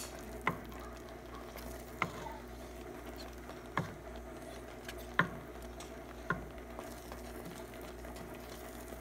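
Wooden spoon stirring thick polenta in an enamel pot, with a handful of sharp knocks spaced a second or two apart over a steady low hum.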